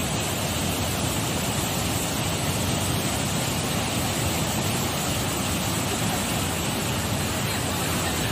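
A river in full flood: muddy floodwater rushing and churning in an even, unbroken noise.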